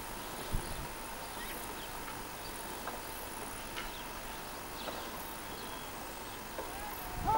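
Outdoor rural ambience: a steady hiss of insects with a few faint, short chirps scattered through it, and a pitched call sliding down right at the end.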